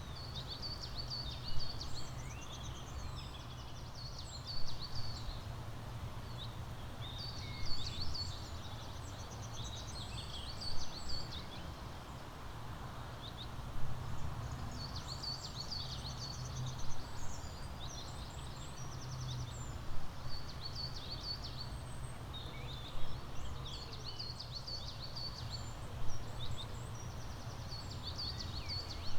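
Several songbirds chirping and trilling, with bursts of song recurring about every three seconds, over a steady low rumble of background noise.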